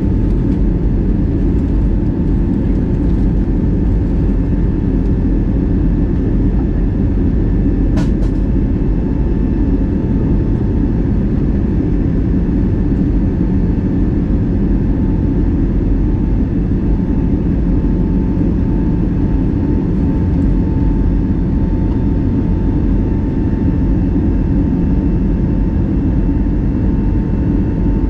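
Steady cabin noise of an Airbus A320neo in flight: a constant rush of airflow and the drone of its Pratt & Whitney PW1100G geared-turbofan engines, with a faint steady tone above it. A single sharp click about eight seconds in.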